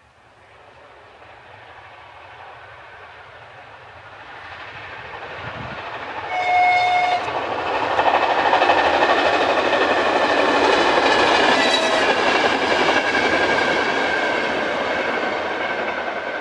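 Passenger train hauled by an electric locomotive passing by. The rumble of wheels on rail builds, peaks, then slowly fades, with one short two-tone horn blast about six and a half seconds in.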